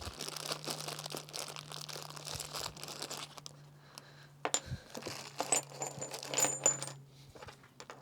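Crinkling and rustling of plastic packaging with small clicks. Then, a few seconds later, light clinks with a brief high ring as small hardware parts are handled and set down.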